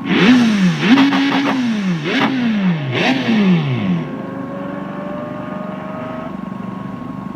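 Mazda RX-7's rotary engine revved in four quick throttle blips, the pitch rising and falling each time, then settling to a steady idle about four seconds in.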